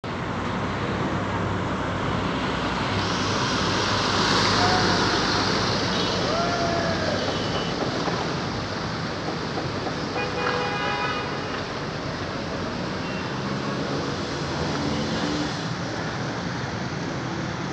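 Steady traffic noise on a flooded city road: vehicle engines running and a constant wash of tyres moving through floodwater.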